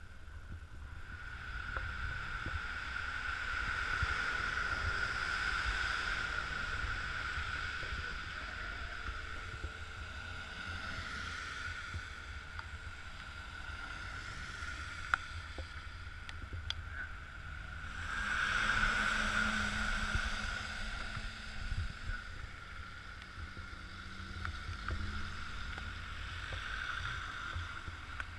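Traffic on a wet road: tyre hiss swells and fades as cars pass, loudest twice, over a low wind rumble on the microphone and a steady high-pitched whine.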